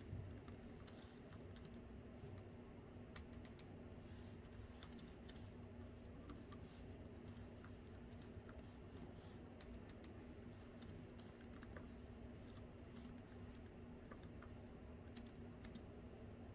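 Faint laptop keyboard typing: soft, irregular runs of key clicks over a steady low hum.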